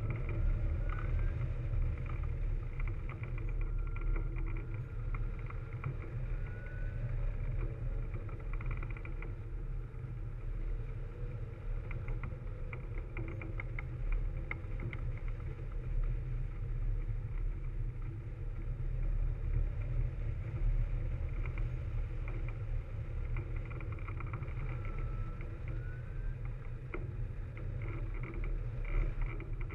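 Steady wind rushing over the microphone of a camera mounted on a hang glider in flight: a dense, low rumble.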